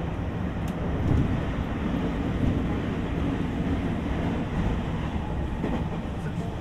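JR West 225-5000 series electric train running between stations, heard from inside the passenger car: a steady rumble of wheels on the rails.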